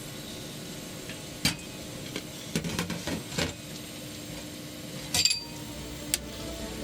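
Scattered clinks and knocks of kitchenware (pot, lid and utensils being handled), with a cluster near the middle and a brighter, ringing clink about five seconds in, over a faint steady hum.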